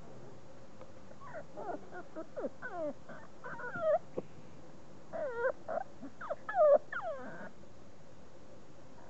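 40-day-old beagle puppies whining and yelping in a run of short calls that mostly fall in pitch, during play-wrestling; the loudest calls come about four seconds in and again near seven seconds.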